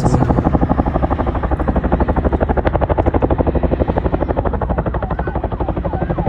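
Chinook tandem-rotor helicopter flying close by, its rotor blades making a rapid, even pulsing beat.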